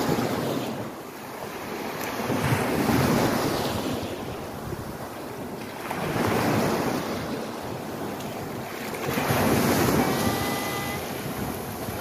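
Small waves breaking and washing up a sandy shore, swelling and fading about every three to four seconds, with wind on the microphone.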